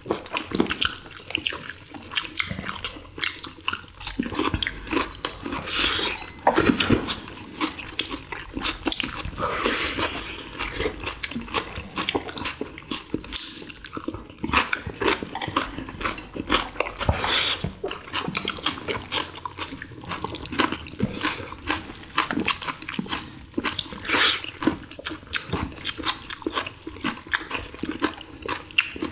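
Close-up eating sounds of boiled samgyetang chicken: wet chewing and smacking from several people, with the soft tearing of tender meat pulled apart by gloved hands, as a run of irregular clicks and wet bursts.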